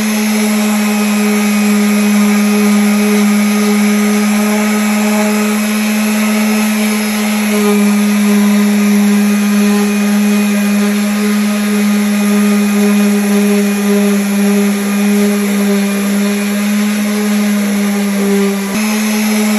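Electric sander running steadily against wood: a loud, even hum with a hiss of abrasion over it, its tone shifting slightly near the end.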